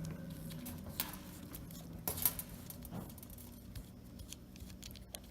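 A few faint, sharp clicks from hand work on the nut of an Oster 76 clipper's switch as it is being removed, over a low steady hum.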